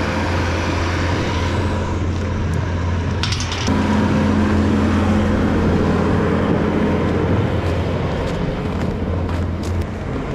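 Farm machinery running steadily with a low, engine-like hum. It gets a little louder about four seconds in, just after a brief rattle.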